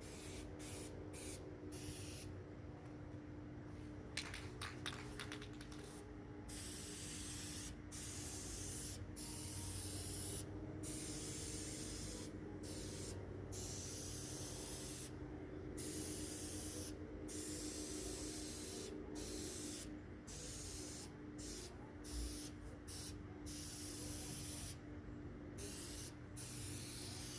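Aerosol spray-paint can spraying in repeated bursts: a hiss that starts and stops every second or two, with a longer pause about three seconds in.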